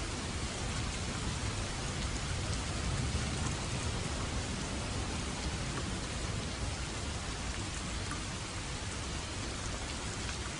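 Steady rain: an even hiss with a low rumble underneath.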